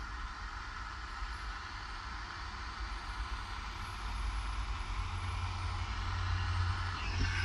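Butane soldering tool's hot-air tip hissing steadily as it heats a wire splice on a fuel pump harness. A low rumble grows louder in the second half.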